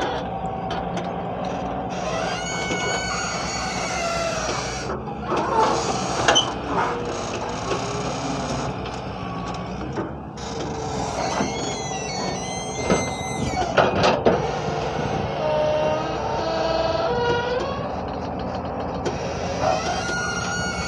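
Hyundai 170 excavator's diesel engine running steadily, with repeated high squeals and screeches that slide in pitch from its working parts and a few sharp clanks.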